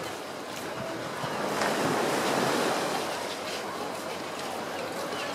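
Steady rushing wind noise on the microphone, with the outdoor harbour ambience underneath.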